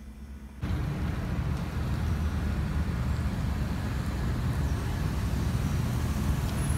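Outdoor ambient noise cutting in abruptly about half a second in: a steady, deep rumble with hiss over it, like traffic or wind on the microphone, with no distinct events.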